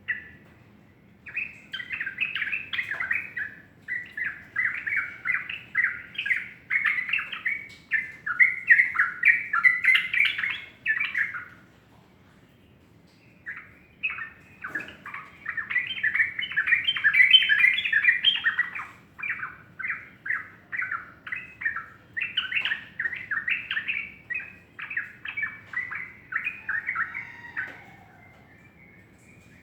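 Yellow-vented bulbul singing long runs of quick, short chirping notes, with a pause of about two seconds midway.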